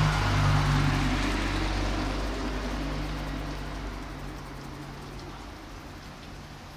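A car's engine hum and tyre noise fading away over a few seconds as it drives off.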